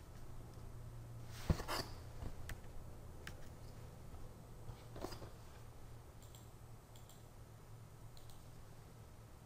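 Scattered clicks and light knocks from a computer mouse being clicked and handled at the desk, the loudest about one and a half seconds in and fainter ones toward the end, over a low steady hum.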